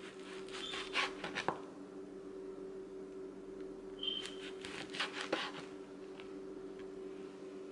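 Chef's knife sawing through a rolled tortilla pinwheel and knocking down onto a plastic cutting board, in two short bursts of cuts about a second in and again around four to five seconds in. A steady low hum runs underneath.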